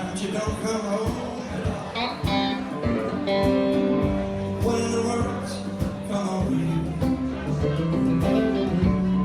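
Band music: guitar over a bass line and drums keeping a steady beat.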